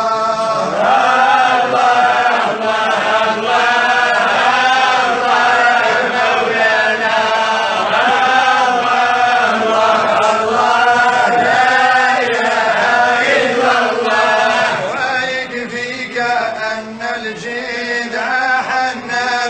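Melodic vocal chanting, with long held notes that waver in pitch and flow into one another. The phrases grow shorter and more broken near the end.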